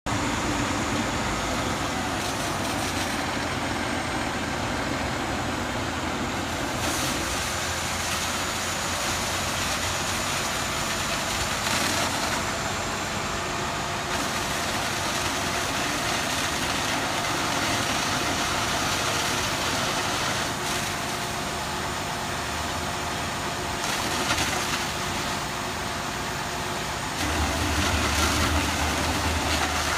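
Fire engine's motor running steadily while it pumps water to a hose stream, under a constant rush of noise; a deeper rumble swells for a couple of seconds near the end.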